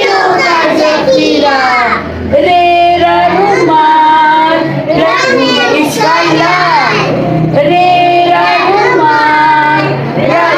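A child singing a melody, with several long held notes.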